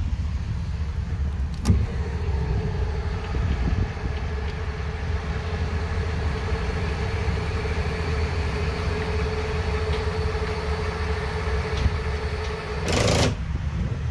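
Electric actuators raising the split power engine hatch of a Fountain 38 Lightning powerboat. A click about two seconds in starts a steady motor whine that runs for about eleven seconds, and a short burst of noise near the end follows as it stops.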